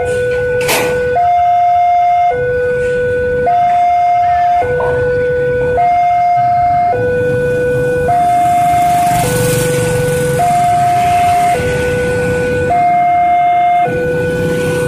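Railway level-crossing alarm sounding a two-tone electronic siren, a lower and a higher tone alternating evenly, each held a little over a second: the warning that a train is approaching and the crossing gates are closing. A rush of noise swells and fades around the middle.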